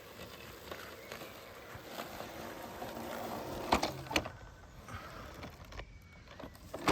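Robotic lawn mower running with a steady motor hiss, then two sharp clicks about four seconds in, after which the running noise drops away as the mower stops. A further sharp click comes at the very end.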